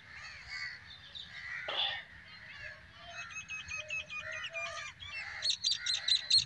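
Wild birds calling in dry scrub woodland: assorted short calls and a rapid twittering run, then a fast series of sharp, high, repeated notes, about four a second, near the end.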